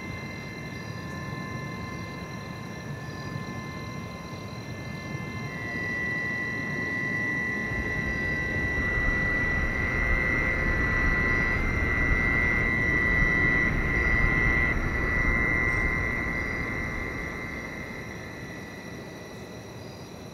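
Film soundtrack drone: a low rumble under thin, sustained high tones. It swells from about a quarter of the way in, peaks past the middle, then fades away near the end.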